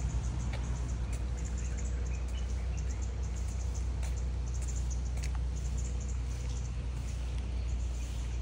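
Insects chirping in rapid, high-pitched pulsing trills that come in repeated clusters, over a steady low rumble.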